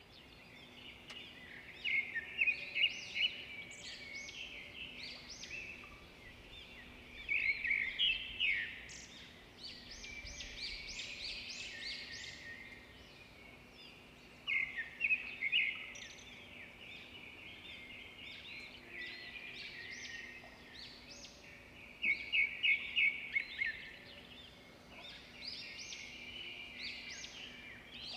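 Birds chirping and singing in high, quick notes, with four loud runs of rapidly repeated notes spaced several seconds apart.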